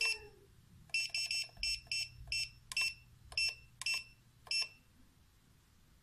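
Electronic key-press beeps from a US211M dosage controller as its buttons are pressed: about a dozen short, high beeps, quick at first and then spaced further apart, stopping about four and a half seconds in.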